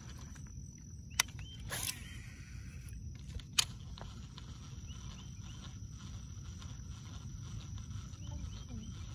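Outdoor lake ambience: a steady high insect drone over a low rumble, broken by two sharp knocks about two seconds apart and a short rushing burst between them.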